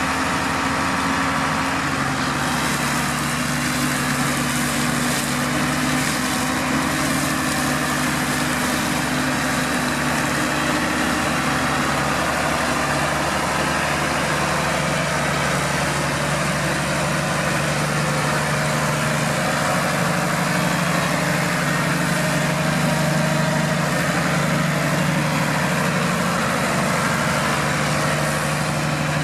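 New Holland TM140 tractor's diesel engine running steadily, with small shifts in its note.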